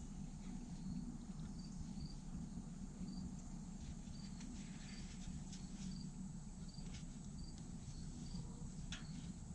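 Short high insect chirps, about twice a second and somewhat irregular, over a low steady rumble, with a few faint clicks.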